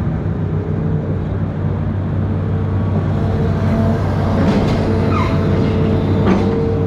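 Amphibious excavator's diesel engine running steadily under load, with a few short squeals and clanks in the second half.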